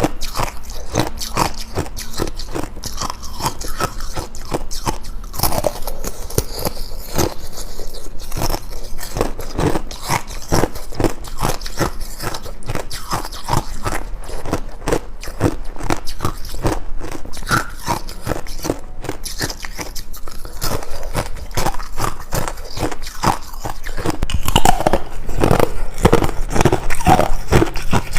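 Ice being bitten and chewed close to the microphone: a dense, irregular run of crunches and cracks, louder for the last few seconds.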